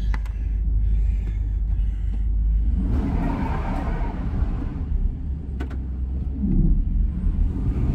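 Engine of a U-Haul rental van running under throttle, heard from inside the cab, as it tries to drive out of mud with traction control off; its unsuitable tyres are losing grip. A low rumble runs throughout, with a surge of rushing noise about three seconds in and a short rise in pitch near seven seconds.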